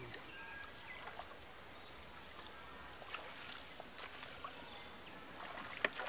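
Shallow water splashing and sloshing as a wading man gathers a fine-mesh fishing net through it, with scattered small splashes and a sharper click just before the end.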